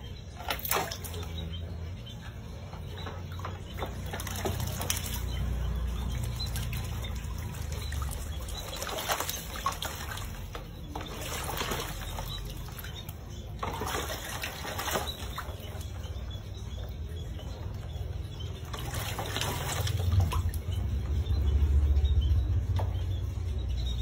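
An owl bathing in a metal basin of water, splashing in several irregular bouts as it dips and beats its wet wings in the water.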